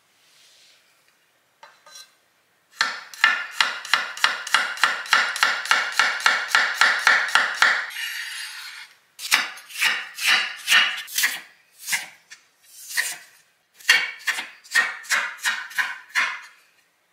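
Chef's knife chopping on a wooden cutting board. It starts with a fast, even run of about five cuts a second slicing garlic cloves, then a short scrape of the blade across the board about eight seconds in. After that come uneven bursts of chopping as an onion is diced.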